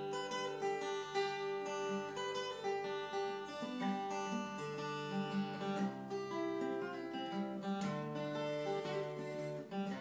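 Acoustic guitar playing a folk tune: a steady run of picked notes over longer-held bass notes.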